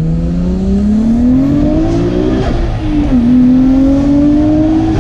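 Nissan Skyline GT-R's RB26 twin-turbo straight-six pulling hard under boost: the engine note climbs, drops at an upshift about two and a half seconds in, then climbs again in the next gear. This is a test pull for misfire and breakup under load with freshly gapped plugs, which the owner judges about 98% better with one small misfire left.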